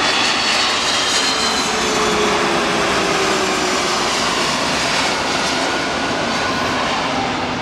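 Jet engines of a twin-engine widebody airliner on low final approach passing close overhead: a loud rushing whine whose tones fall in pitch as it goes by, then slowly fading as it moves away.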